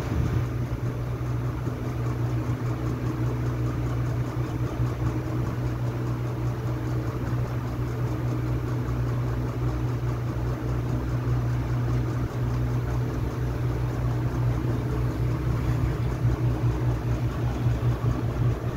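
Hot air gun running steadily, a constant fan whir with a low hum, as it heats a new phone charging jack to solder it onto the circuit board.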